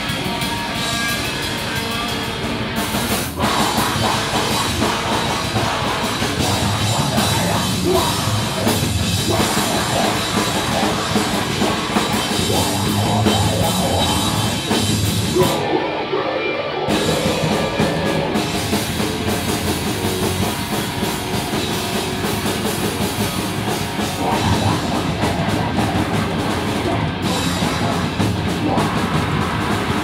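Live rock band playing loud with drum kit and distorted guitars, heard from the crowd in a small room. The band kicks in louder about three seconds in and breaks briefly about sixteen seconds in.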